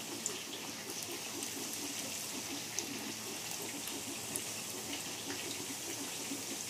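Samosas deep-frying in oil kept at medium heat in a kadhai: a steady sizzling hiss with a few faint small pops.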